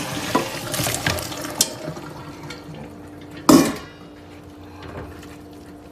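Water pouring and splashing as blanched rice noodles (bún) are drained and rinsed, then a single sharp clank about three and a half seconds in.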